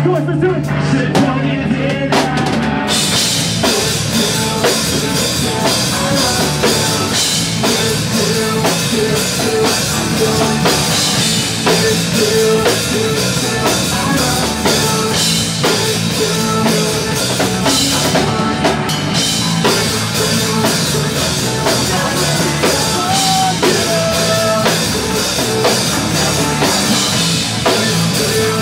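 Live pop-punk band playing at full volume, drum kit driving the song, with the cymbals coming in about three seconds in.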